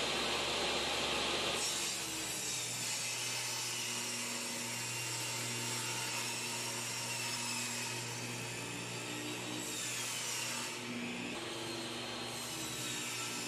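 Table saw ripping a sheet of plywood, the blade running steadily through the cut. It is louder and hissier for the first couple of seconds, then settles into a slightly quieter, even run.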